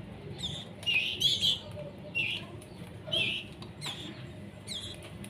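Young canaries giving short, high-pitched begging cheeps, about eight or nine in quick, irregular succession, some sliding down in pitch, as they are hand-fed.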